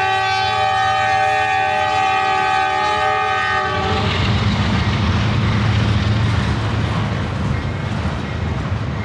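A Norfolk Southern freight locomotive's air horn sounds one long chord that cuts off about four seconds in. The low, steady rumble of the freight train rolling past follows.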